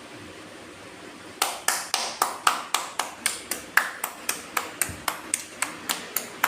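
Rapid, evenly spaced taps on something that rings, about four sharp pings a second, starting about a second and a half in.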